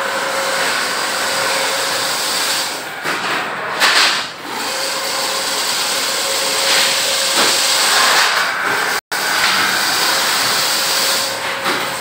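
Steady mechanical noise with a faint hum and a few brief knocks. The sound drops out for an instant about nine seconds in.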